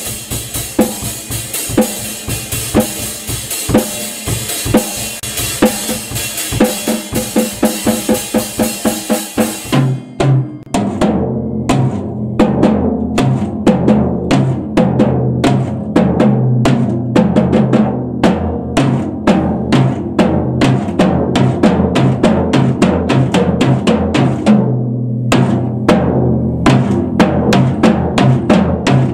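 Yamaha drum kit played in a steady beat. For about the first ten seconds a continuous cymbal wash rides over the strokes; then the cymbals drop out and the strokes carry on, on the drums alone, their low tones ringing between hits.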